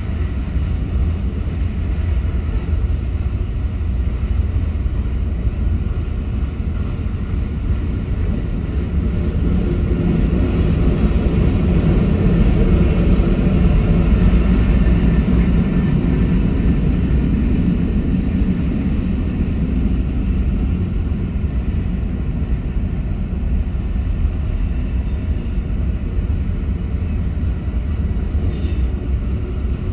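Freight train cars rolling past a grade crossing: a steady, heavy rumble of steel wheels on the rails that swells a little about halfway through.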